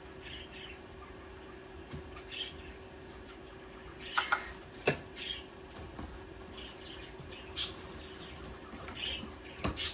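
Pet parakeets giving scattered short chirps and squeaks, with a few louder, sharp peeps.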